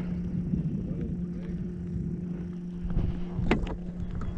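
Steady low motor hum from a small fishing boat, over an uneven low rumble of water and wind on the microphone; a single sharp click about three and a half seconds in.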